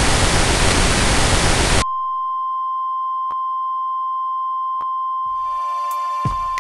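Loud static hiss that cuts off sharply about two seconds in. It is replaced by a single steady high beep tone, with two faint clicks. Music with held chords comes in under the tone near the end.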